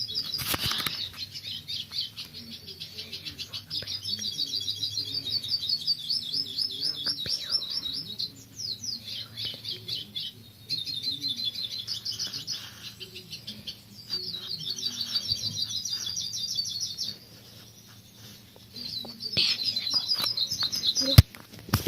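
Birds singing: repeated phrases of fast, high trilled notes, each lasting a second or two with short pauses between, and a sharp click near the end.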